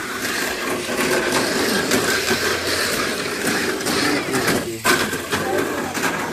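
Mini 4WD cars running a heat on a multi-lane plastic track: their small stock electric motors whine steadily amid a dense clicking clatter of the cars against the track.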